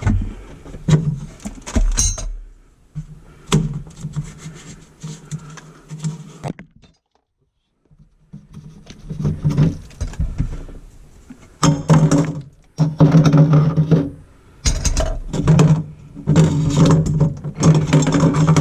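Scraping, clicking and clattering of a screwdriver and the metal parts of a garbage disposal's sink mounting assembly as it is worked loose, in irregular bursts with a brief silence about seven seconds in.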